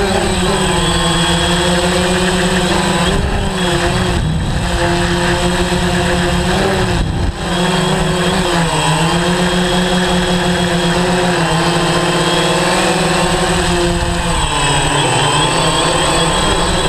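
DJI Phantom 3 quadcopter's electric motors and propellers buzzing in flight. The pitch drifts up and down as the motors speed up and slow down, with a brief dip about seven seconds in.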